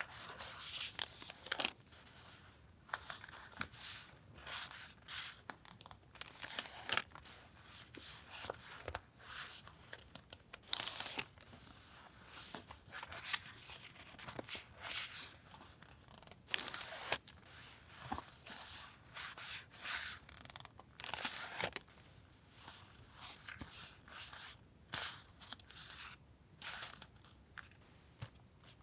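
Paper packaging and stationery handled by hand: a run of short, irregular rustles and tears of kraft paper and paper items, with crinkling in between.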